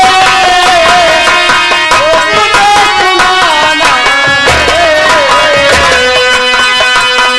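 Nautanki folk song: a singer's wavering, ornamented melody into a stage microphone, over held instrumental notes and hand-drum beats. There are heavier low drum strokes a little past the middle.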